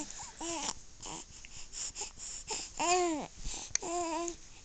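Young baby cooing: a few short vocal sounds, one rising and falling about three seconds in, and another held for about half a second just after four seconds.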